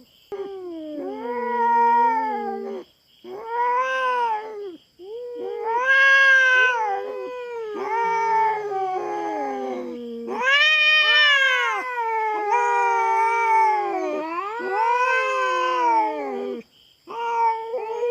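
Feral cat caterwauling in a territorial confrontation: loud, long wavering yowls that rise and fall in pitch, one after another with brief breaks.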